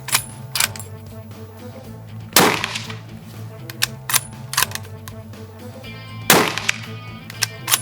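Two loud rifle shots about four seconds apart, each followed by a long echoing tail, from a .30-06 bolt-action hunting rifle, the Haenel Jaeger 10 Pro. Several sharper, quieter cracks fall between them, over background music.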